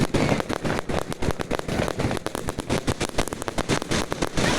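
Fireworks going off in a rapid, unbroken string of sharp cracks and bangs, many a second.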